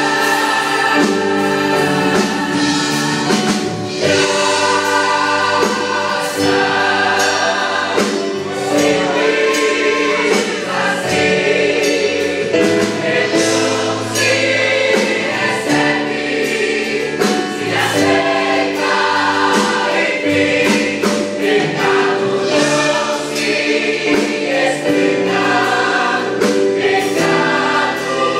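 A church youth choir singing a gospel hymn in Portuguese, with a band of drums and instruments behind it.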